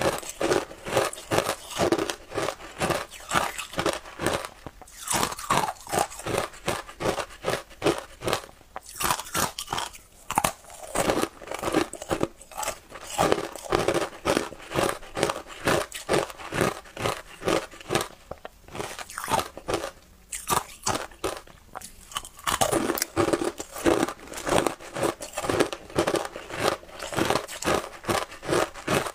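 Shaved ice dusted with matcha powder being bitten and chewed close to a clip-on microphone: rapid crisp crunching, several crunches a second, broken by brief pauses every few seconds.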